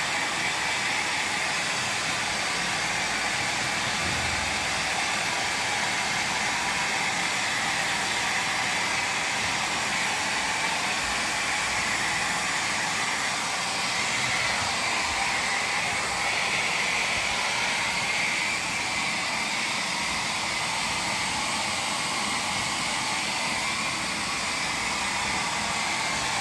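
Hair dryer running steadily: an even rushing hiss with a faint high hum, unchanging throughout.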